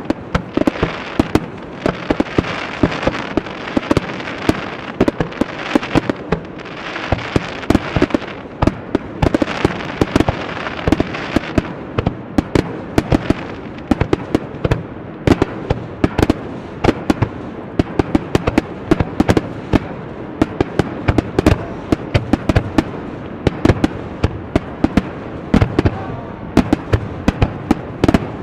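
Starmine fireworks barrage: aerial shells bursting in quick succession, several sharp bangs a second, over a dense crackling hiss that thins out about twelve seconds in.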